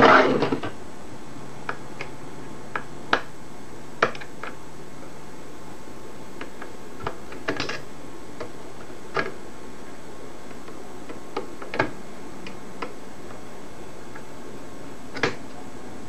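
Irregular clicks and light knocks, a few seconds apart, from hands handling and lifting out the metal chassis, speaker and circuit board of a vintage portable tape recorder, over a steady hiss.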